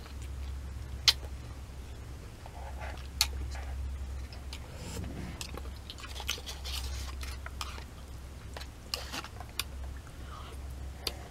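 A person chewing udon noodles with wet mouth clicks and smacks, scattered and irregular, over a steady low hum.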